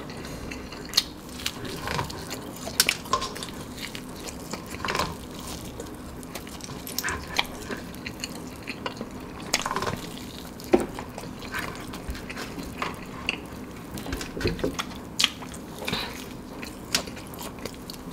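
Close-up eating sounds of a person biting into and chewing fried chicken: irregular wet mouth clicks, smacks and bites, a few each second.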